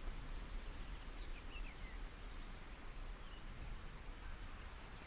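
Summer meadow ambience: insects chirring steadily in the grass, with a few faint short chirps about a second and a half in, over a low rumble on the microphone.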